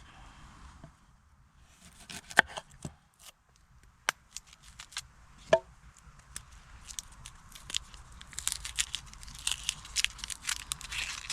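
Scattered sharp cracks and snaps of wood, growing into denser crackling and rustling from about eight seconds in.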